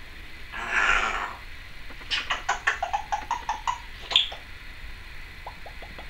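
Timneh African grey parrot making a string of mouth noises: a short hissing burst about a second in, then a quick run of about a dozen clicks, roughly six a second, with a tone that climbs from one click to the next. A sharp squeak follows just after four seconds, then a fainter run of ticks near the end.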